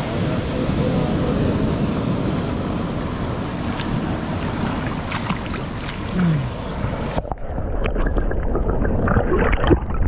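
Surf washing and foaming over shoreline boulders close by; about seven seconds in the sound turns suddenly muffled, heard from underwater as a dull churning of moving water.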